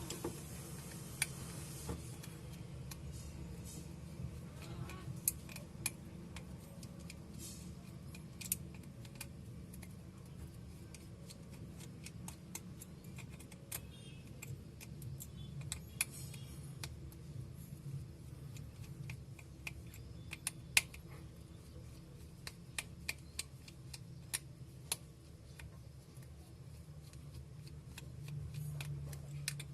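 Irregular light clicks and taps of small repair tools on a smartphone's plastic housing and internal parts as the phone is being opened, over a low steady hum.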